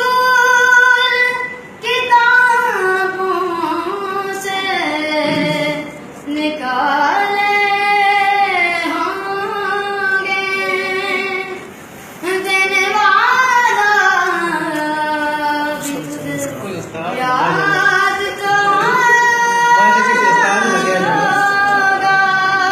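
A female voice singing long held notes that bend and slide in pitch, in several phrases with short breaks between them.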